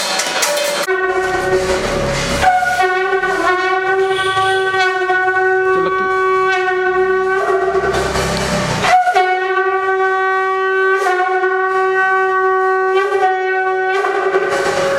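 A conch shell (shankh) blown in two long, steady held notes, with a short break for breath between them.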